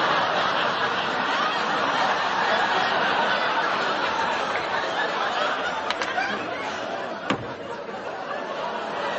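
Studio audience laughing, a long wave of laughter that slowly eases off, with a sharp knock about seven seconds in.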